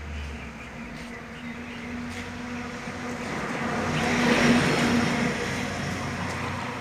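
A motor vehicle passing by, its engine hum and road noise growing louder to a peak about four and a half seconds in, then fading.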